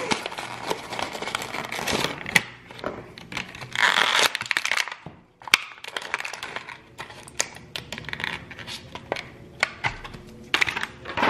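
Hands handling a plastic action figure and clear plastic packaging close to the microphone: irregular small clicks and taps with crinkling rustles, the longest rustle about four seconds in.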